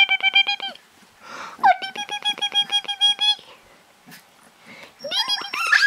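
Young puppies howling in rapid, stuttering yips at a steady pitch, in two bouts of about a second and a half each. A higher, rising howl starts near the end.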